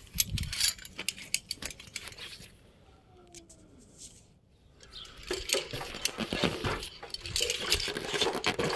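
Metal clinking, knocking and rubbing of a cable installer's climbing-harness hardware and gear as he climbs a utility pole, in two busy stretches with a quieter gap about halfway through.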